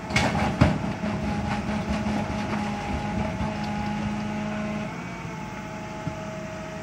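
Rear-loader garbage truck's hydraulic compactor running with a steady mechanical hum while it crushes household goods, with a few sharp cracks in the first second. The hum drops down about five seconds in.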